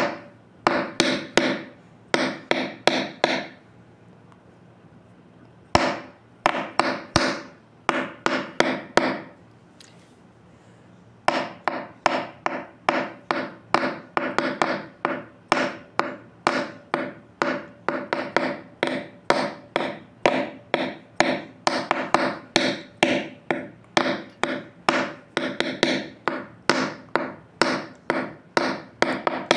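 Repeated sharp knocking strikes, like hammering on wood. They come in short runs with pauses at first, then keep a steady pace of about two a second from about eleven seconds in.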